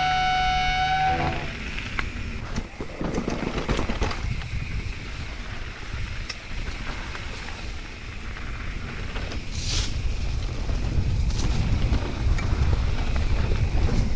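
A held musical chord cuts off about a second in. After it come wind buffeting the microphone and the rumble and rattle of a mountain bike rolling over a loose, stony dirt trail, with scattered knocks, getting louder near the end.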